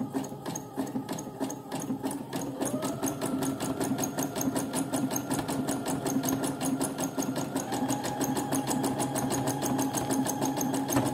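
Domestic sewing machine stitching a small zigzag stitch: a fast, even clatter of needle strokes over a steady motor whine that steps up in pitch about two and a half seconds in.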